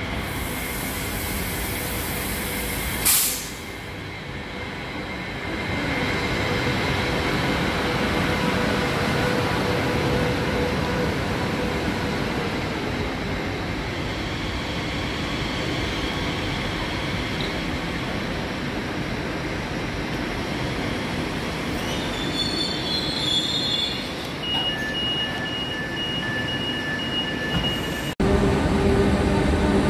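Z50000 Francilien electric train rolling into the platform and braking to a stop, with running noise and squealing wheels and brakes, and a sharp clack about three seconds in. Near the end a repeated beeping sounds as the doors open, then the sound cuts abruptly to a louder steady hum.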